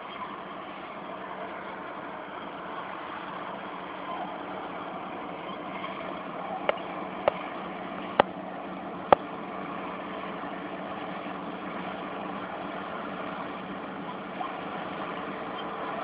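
Caterpillar D8N bulldozer's diesel engine running steadily as the dozer pushes earth. Four sharp clicks come close together between about six and a half and nine seconds in.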